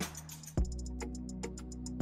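Background music with a steady beat: quick regular ticks over sustained bass notes, a short swish at the start and a heavy drum hit about half a second in.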